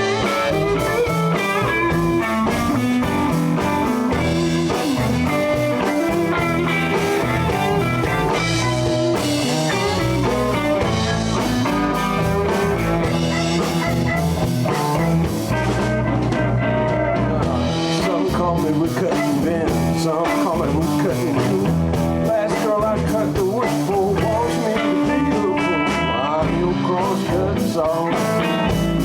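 Live blues band playing an instrumental break with no vocals: lead electric guitar over bass and drums.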